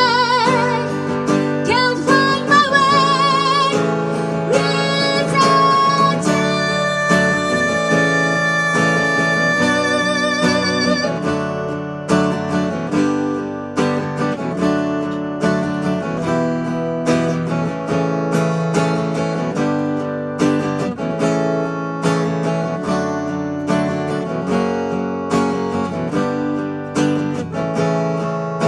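Live acoustic guitar and female voice: for about the first ten seconds she holds long notes with vibrato over the guitar, then the acoustic guitar carries on alone with a strummed and picked instrumental passage.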